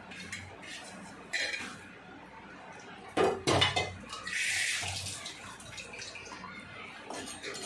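Kitchen utensils clinking and clattering: a few light knocks, then two loud clanks a little over three seconds in, followed by about a second of rushing, hissy noise.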